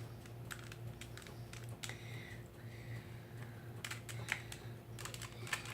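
Irregular plastic clicks of a 2x2 Rubik's Cube being turned and handled, its layers snapping round in short scattered bursts.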